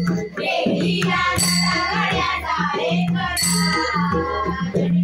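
Warkari devotional bhajan: female voices singing a Marathi gavlan together, over a steady beat on a barrel drum, with hand cymbals ringing out about three and a half seconds in.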